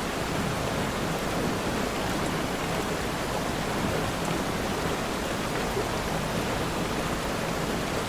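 Steady, even rainfall, a dense hiss of rain with no single drops or thunder standing out.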